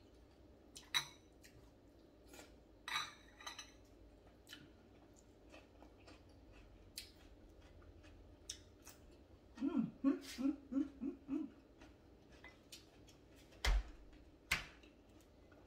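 Eating by hand at a table: scattered light clicks and taps of fingers and food against a plate, with a short run of about six quick voiced sounds from the eater about ten seconds in.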